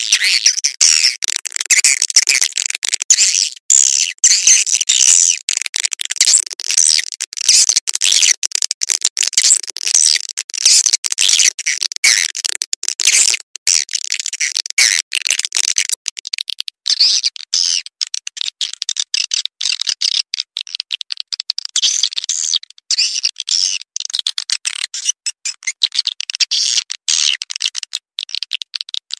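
Swiftlet call sound, a lure recording of the kind played to draw swiftlets into a bird house: dense, rapid, high chirping twitters and clicks, thinning out a little after about sixteen seconds.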